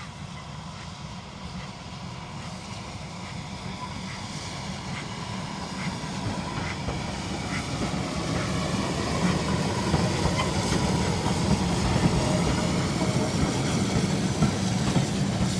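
Heritage railway train running on the rails: a steady rumble with wheel noise, growing steadily louder.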